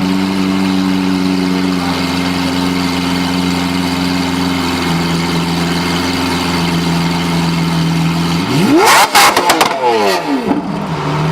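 Lamborghini engine idling steadily, then revved once hard about eight and a half seconds in, the pitch shooting up and dropping back to idle within about two seconds.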